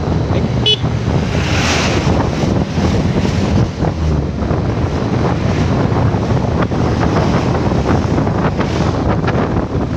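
Heavy wind rushing over the microphone of a motorcycle moving along the road, with the bike's engine and road noise underneath.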